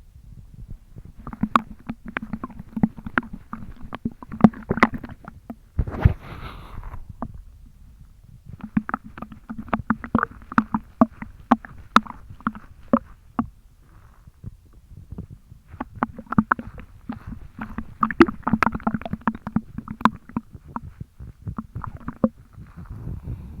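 A stomach full of milk, almost a litre drunk in one go, sloshing as the belly is jiggled. The sloshing comes in three spells of rapid sloshes with short pauses between, and there is a single thump about six seconds in.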